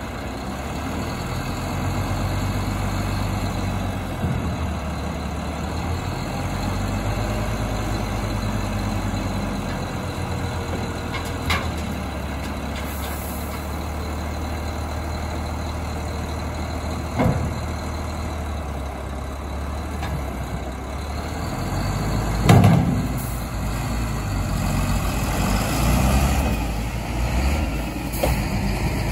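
Renault Kerax 440 dXi dump truck's inline-six diesel running steadily while its hydraulic tipper body is raised, with a few sharp knocks and clanks, the loudest about two-thirds of the way through. Over the last few seconds the engine pulls harder as the truck drives off.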